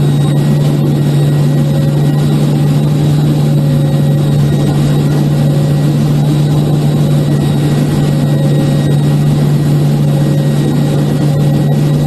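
Twin turboprop engines and propellers of a C-2A Greyhound, heard from inside the cockpit, running steadily on approach: a loud, even drone with a strong low hum.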